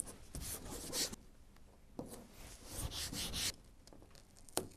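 Blue masking tape being pulled off and pressed and smoothed down by hand onto a fibreglass (GRP) hull, in several short bursts, with a sharp tap near the end.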